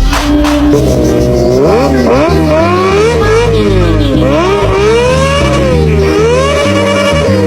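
Supercharged Kawasaki Ninja H2 inline-four engine revved again and again, its pitch swooping up and down in waves. Under it runs a dance-music beat with a stepping bassline.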